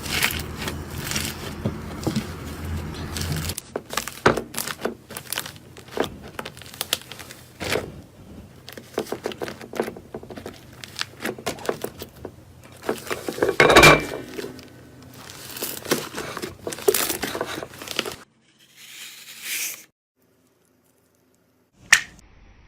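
Slime being squeezed and pressed by hand: a dense run of small sticky clicks and crackles, stopping for a couple of seconds near the end.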